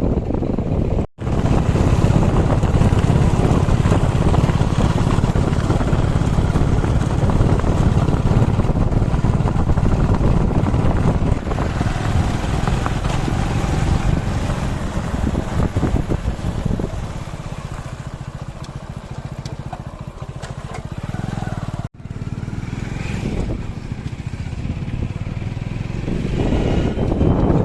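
Diesel engine of a JCB 3DX backhoe loader running under load while digging and loading mud. The engine note drops back about two-thirds of the way through and picks up again near the end. Twice the sound cuts out for a split second.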